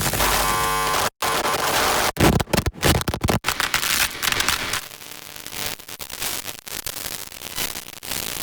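Designed connection-interference sound effects: loud static hiss with a buzzy tone that cuts out suddenly about a second in, then stutters in choppy bursts with dropouts, and settles into quieter crackling static for the second half.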